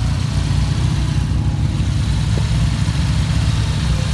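Motorcycle engine idling steadily with a fast, even low beat, holding a constant speed with no revving.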